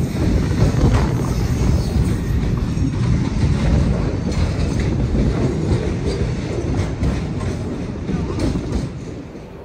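Train running past, with wheels clicking over rail joints. The sound drops away over the last second.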